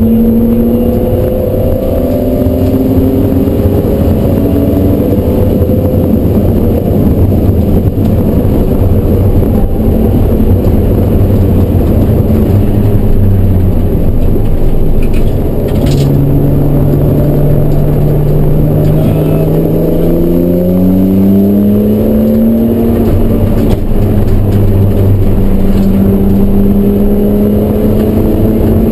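BMW E36 M3's straight-six engine running hard on track, heard from inside the cabin. The engine note climbs as the car accelerates and drops back at gear changes and lifts, several times over.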